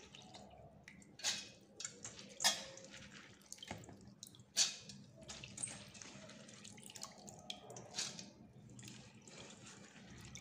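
Handfuls of soaked, washed urad dal scooped by hand from a steel bowl and dropped into a steel mixer-grinder jar: irregular short wet drops and rattles of the lentils against the steel.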